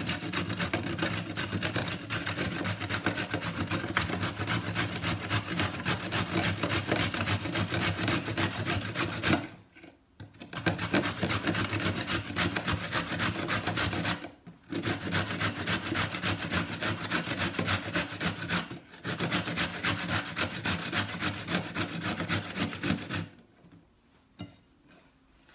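A carrot being grated on a stainless steel box grater: rapid, even rasping strokes, broken by a few short pauses, stopping about two seconds before the end.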